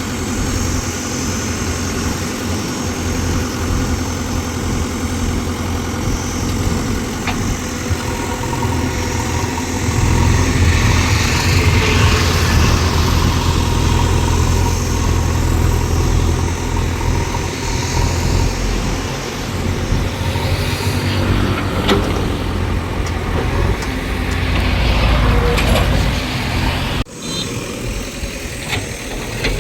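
Heavy diesel engine of a backhoe loader or tractor running steadily. It grows louder about a third of the way in, as if working under load, then eases, swells again and breaks off abruptly for a moment near the end.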